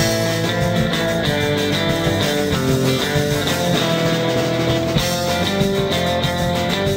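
Background music: a guitar-led rock instrumental with a bass line and a steady beat.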